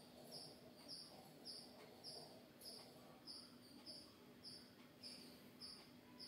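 A cricket chirping steadily, about two short chirps a second, over a faint sizzle from an egg-coated chapati frying in oil in the pan.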